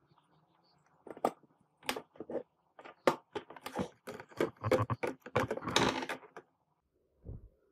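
Irregular run of light clicks and clatter, thickening into a rapid patter in the second half and stopping shortly before the end: hands handling a gold-plating setup on a tabletop, with a glass jar, alligator clip and plastic container being moved.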